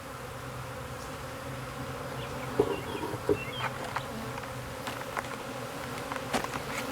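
Swarming honeybees buzzing in a steady, continuous hum, with a few light clicks over it from about halfway through.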